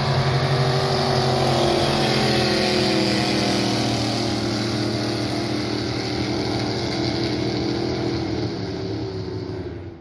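Racing jet boat's engine at full throttle as the boat speeds past. Its pitch slides slowly downward, and the sound eases off a little near the end.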